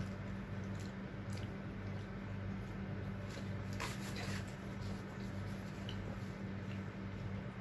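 Close eating sounds: chewing of fried tawilis and rice, with scattered small clicks and a brief louder crunch-like noise about four seconds in, over a steady low electrical hum.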